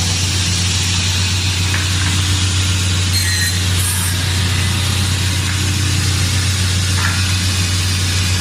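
Filato 3200 Maxi sliding-table panel saw running steadily with no cut: a loud, even motor drone with the hiss of the spinning blade.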